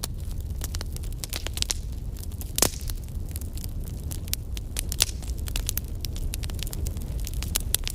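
Crackling fire sound effect: irregular sharp crackles and pops over a low, steady rumble, with a louder pop about two and a half seconds in and another about five seconds in.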